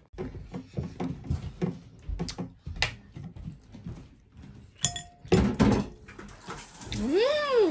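Dishes and cutlery clinking and knocking in scattered short clicks, with a louder knock about five seconds in. Near the end, one short cry rises and falls in pitch.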